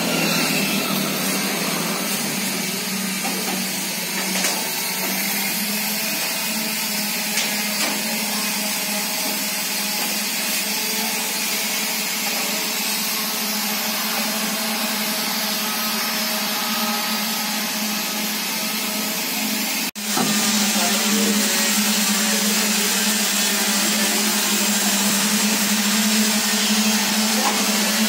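A machine motor running steadily, a continuous hum with hiss above it. It breaks off for an instant about twenty seconds in, then goes on slightly louder.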